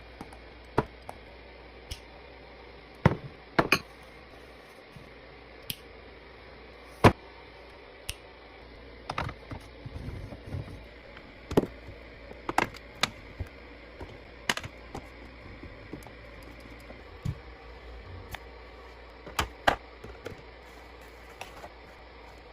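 Irregular sharp clicks and knocks of food containers and packaging being handled and set down while restocking a fridge, some in quick pairs, over a steady hiss.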